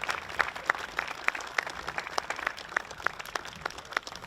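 A small crowd applauding, with single hand claps standing out and thinning toward the end.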